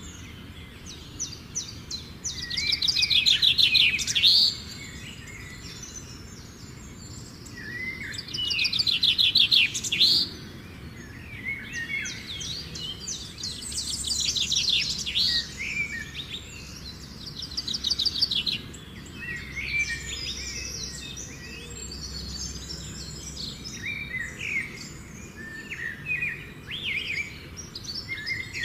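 Birdsong: several birds chirping and whistling, with two louder rapid trilling phrases, about three and about nine seconds in.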